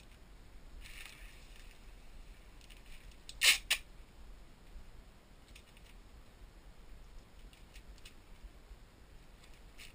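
Hands cutting and handling a white plastic mailer with scissors: soft plastic rustling, a sharp double click about three and a half seconds in, then scattered light clicks and taps.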